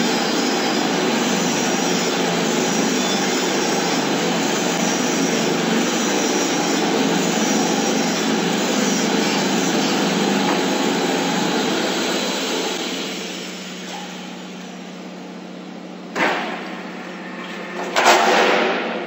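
Highway guardrail roll forming machine running, a dense steady mechanical noise that dies down after about twelve seconds. Two loud bangs follow near the end.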